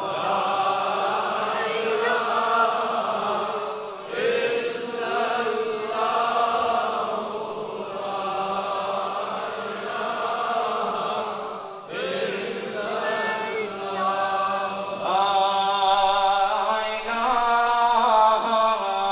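Devotional zikr chanting: voices sing the remembrance of God in long, melodic, drawn-out phrases, with brief breaks between phrases.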